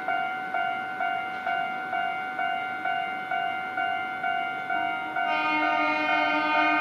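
Japanese level crossing warning alarm ringing steadily, about two rings a second. About five seconds in, a train horn joins it and is held long over the alarm.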